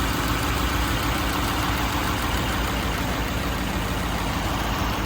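Mercedes-Benz 300SEL 6.3's 6.3-litre M100 V8 idling steadily.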